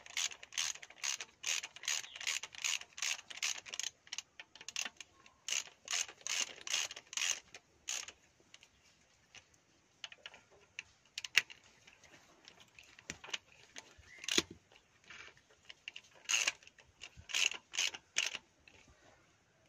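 Socket ratchet wrench clicking in quick runs, about three clicks a second, as bolts on a JCB 3DX transmission's charge pump are turned. After several seconds the clicking thins to scattered clicks with two sharper knocks, then picks up again in a short run near the end.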